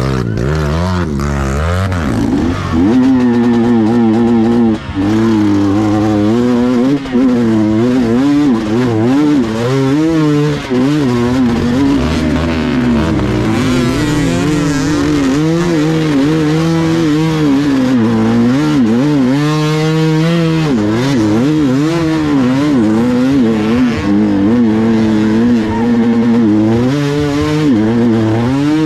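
Dirt bike engine revving up and down again and again, with a second engine holding a steadier, lower note underneath.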